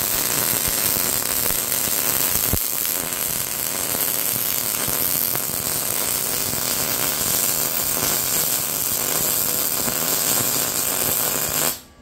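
MIG welding arc from an Arccaptain MIG200 at about 169 amps, laying one continuous bead with a steady sizzle that stops abruptly near the end.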